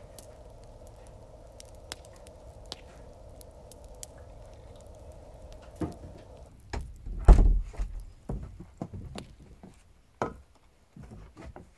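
Water poured from a kettle into a thermos, a faint steady trickle that stops abruptly about six and a half seconds in. Then heavy boot footsteps thud on a wooden porch, with scattered knocks and clicks.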